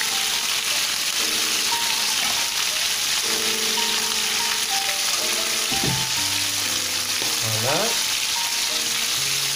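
Chicken drumsticks frying in hot duck fat in a pan: a loud, steady sizzle, with a utensil turning and pushing the pieces around. Soft background music with held chords plays underneath.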